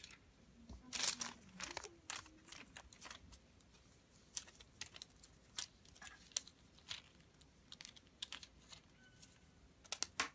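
Irregular crinkly rustles and sharp little clicks as a kitten swats, grabs and bites a feather wand toy. A bunch of them comes about a second in and another near the end.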